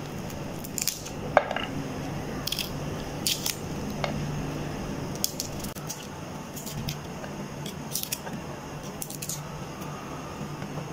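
Garlic being peeled with a kitchen knife over a plate: irregular small clicks and scrapes of the blade against the cloves and their papery skins, a few a second.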